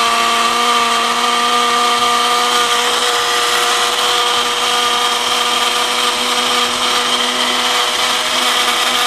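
Countertop blender motor running steadily, puréeing watermelon and tomato chunks into a smooth liquid.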